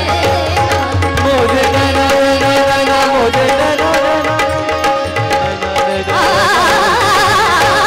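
Live Indian devotional music: a woman singing over harmonium and tabla. About six seconds in, a higher, wavering melody line comes in.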